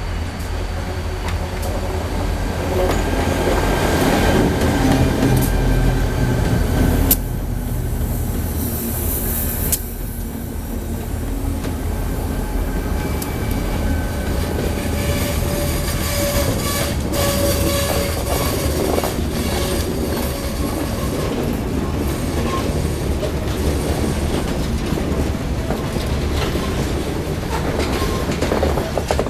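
Ithaca Central Railroad freight train rolling along the track: a steady low rumble with steel wheels squealing on and off against the rails and occasional sharp clicks.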